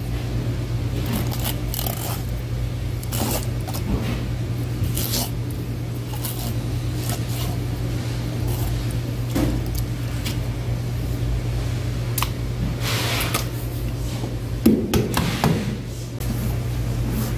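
Knife work on fish at a cutting board: short scrapes and clicks of the blade, a longer scrape about 13 s in and a few knocks about 15 s in. A steady low hum runs underneath.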